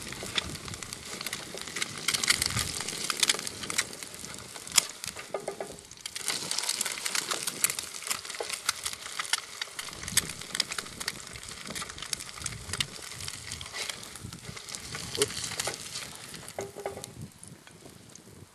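Eggs frying and sizzling in a nonstick pan, with the spatula scraping and tapping the pan as they are lifted out; the sizzle dies down near the end once the pan is empty.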